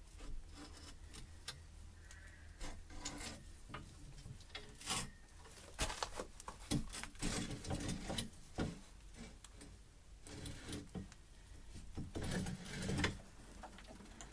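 Irregular knocks, scrapes and rubbing of timber as a wooden arch former is worked loose and lowered from under a newly built stone arch.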